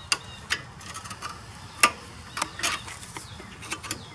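Screwdriver prying at the metal spring clip on a rear brake caliper to pop it off: scattered metallic clicks and scrapes, the loudest about two seconds in.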